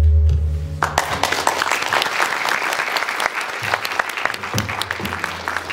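The dance music's last held note with its low drone ends, and audience applause breaks out about a second in and carries on.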